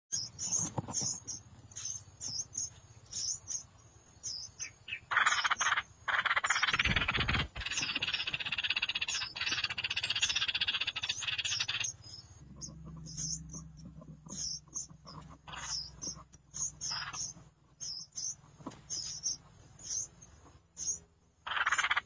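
Bulbul nestlings begging with a steady run of short, high cheeps, about two a second. A louder, noisier stretch runs from about five to twelve seconds in, with a low thump near seven seconds.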